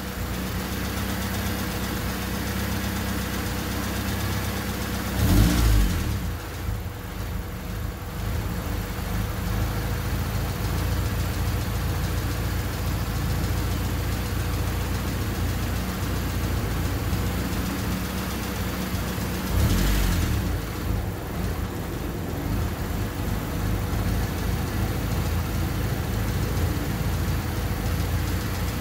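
Honda D16Y8 1.6-litre four-cylinder engine idling steadily, with two brief loud bursts about five and twenty seconds in. The owner still finds the idle weird after rewiring the OBD2 injectors.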